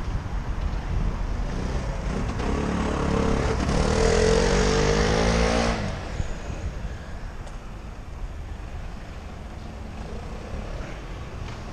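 Road traffic heard from a bicycle, with wind rumble on the microphone. A nearby motor vehicle's engine grows louder from about two seconds in, rising slightly in pitch, then cuts off abruptly about halfway through, leaving the quieter rumble.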